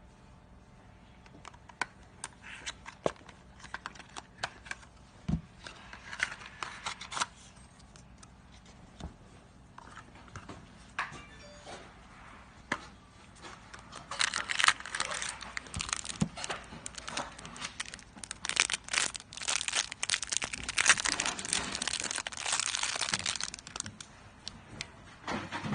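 Packaging being handled and torn open: scattered clicks and light rustles at first, then, about halfway through, a loud spell of crinkling and tearing lasting some ten seconds.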